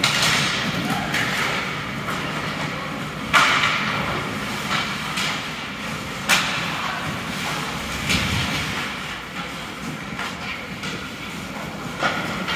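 Ice hockey play echoing in an arena: a steady scraping haze of skates on the ice, broken by several sharp cracks of puck and sticks against the boards. The loudest cracks come about three and a half and six seconds in, with another near the end.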